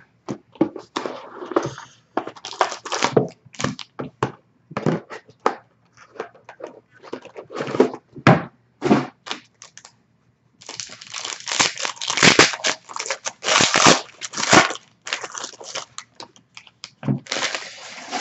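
Plastic wrapping on a box of trading cards being torn open and crumpled: a long run of sharp crinkling rips, densest and loudest a little past halfway through.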